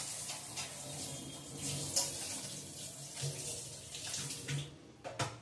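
Kitchen tap running and splashing while a large aluminium storage tin is rinsed under it, with a few clunks of the metal tin. The water stops near the end, followed by one more knock.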